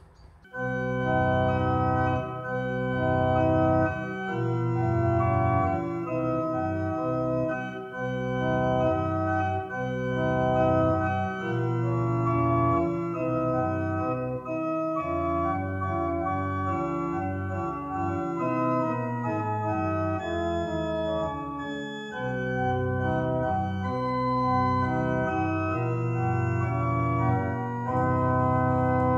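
Organ playing a slow tune in held chords, starting about half a second in.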